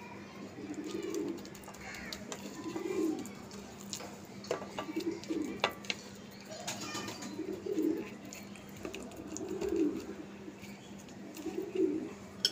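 A pigeon cooing: a low, throaty coo repeated about every two seconds, with a few faint clicks from handling in between.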